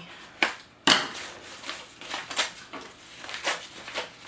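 Paper wrapping being cut and pulled open by hand: two sharp snaps about half a second and a second in, the second the loudest, then lighter crinkling and rustling of paper.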